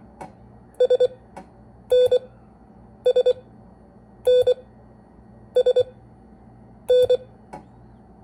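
Morse code sidetone beeping the letters S (three short dits) and N (a dah then a dit) over and over, about one letter every second and a quarter, keyed on a paddle. Faint clicks fall between some of the letters.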